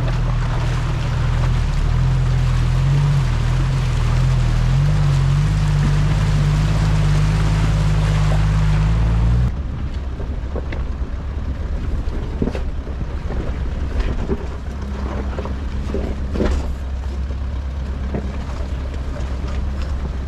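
Four-wheel drive's engine running under load beneath a loud rushing noise for about nine seconds. The sound then cuts abruptly to a quieter, lower engine hum with scattered knocks and clicks of tyres over rock and stones.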